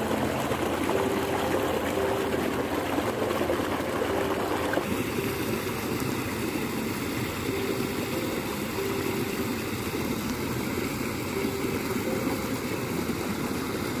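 Steady rush of water flowing along an irrigation channel, an even wash with no pauses; its tone shifts slightly about five seconds in.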